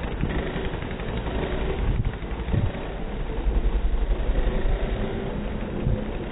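Small motor scooter engines running at riding speed, with a steady low rumble of wind on the microphone.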